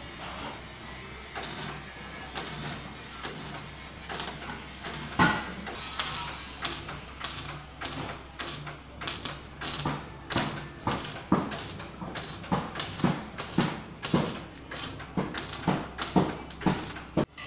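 MIG welder tack-welding a custom exhaust pipe under a car: a series of short crackling bursts, a few at first, then about two a second in the second half, over a faint steady hum.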